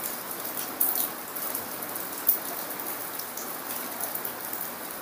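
Heavy rain falling steadily, an even hiss with a few sharper drop splashes, notably about one and two seconds in.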